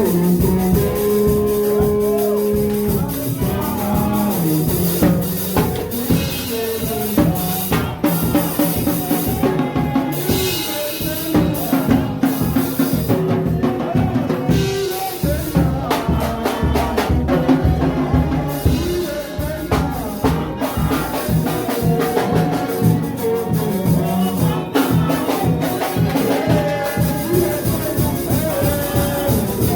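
Music with a drum kit keeping a steady beat under held instrument notes.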